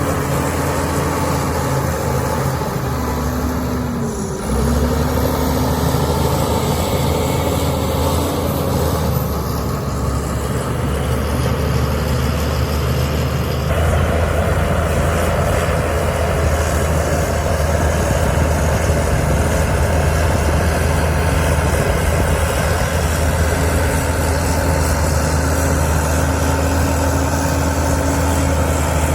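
Heavy diesel engine of earthmoving machinery running steadily under load. The engine note dips and swoops back up about four seconds in, and grows louder about halfway through.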